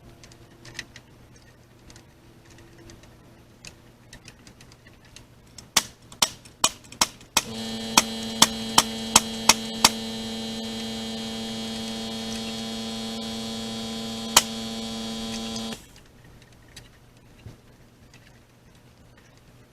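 Nails being driven into an oak header: a string of sharp strikes, several in quick succession about two or three a second. A steady machine hum starts partway through and cuts off suddenly.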